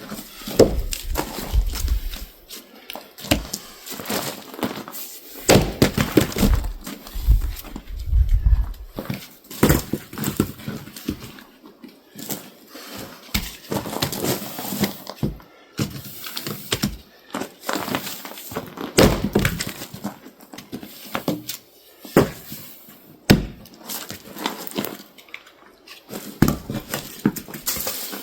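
Firewood being split and handled: a string of irregular wooden thunks, knocks and clatter, some of them heavy and deep.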